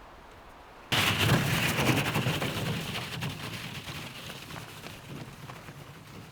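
A sudden loud rushing slide starts about a second in, then fades slowly over several seconds as the sliding load slows and stops partway down instead of going all the way.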